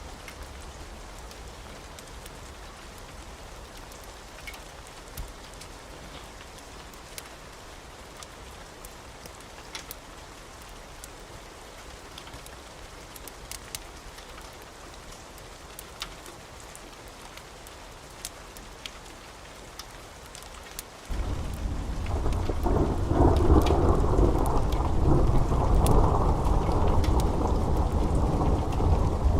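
Steady rain with scattered sharp crackles from a wood fire, then about two-thirds of the way in a sudden, loud, low thunder rumble sets in and keeps rolling.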